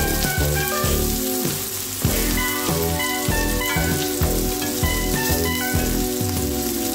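Kuku sabzi herb patties sizzling as they fry in oil in a pan, under background music with a melody and bass line.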